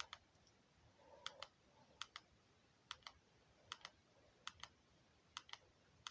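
Faint, regular clicking: pairs of sharp clicks in a steady rhythm, a bit more than one pair a second.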